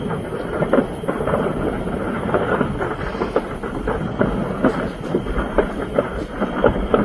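Large fire burning, with dense crackling and popping over a steady rushing noise.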